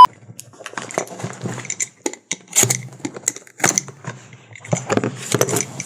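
Handling noise as a cardboard shipping box is picked up and moved: irregular rustling with clicks and knocks, the loudest knocks about two and a half and three and a half seconds in.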